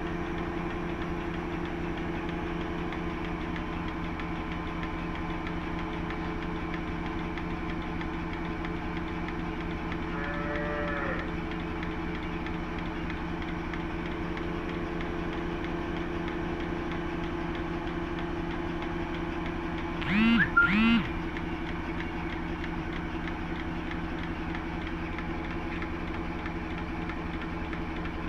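Cattle mooing: one faint call about ten seconds in, then two loud, drawn-out moos in quick succession about twenty seconds in. Under them a steady motor hum runs throughout.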